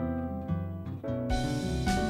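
Instrumental music with plucked-string notes. About a second in, it turns into a brighter, fuller passage.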